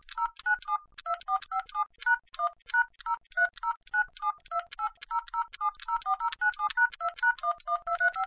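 Touch-tone phone keypad pressed rapidly, a long string of short dual-tone DTMF beeps at about five or six a second. This is a caller keying in long account, serial and customer ID numbers at an automated phone menu.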